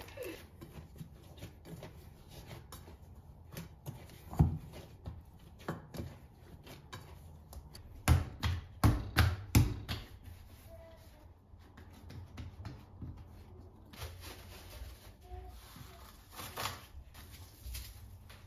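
Dough being kneaded and shaped by hand, with scattered soft knocks against the bowl and counter, and a quick run of dull thumps about halfway through as the dough ball is worked on the stone countertop.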